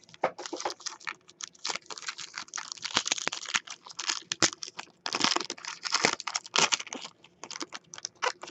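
Foil trading-card pack being torn open and crinkled by hand: a dense run of sharp crackles and rustles with a few short pauses.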